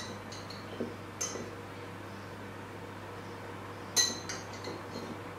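Metal fork clinking against the inside of a glass jar of olives as olives are picked out: two sharp, ringing clinks, about a second in and about four seconds in, with a few softer taps.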